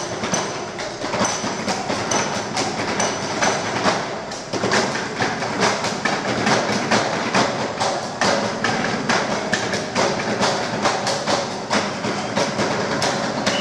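A group drumming in rhythm on wooden school desks with hands and plastic cups: a fast, dense clatter of many knocks a second.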